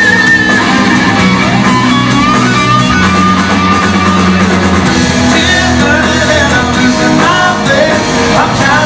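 Live rock band playing: an electric guitar lead with long held, bending notes over bass and drums, with singing.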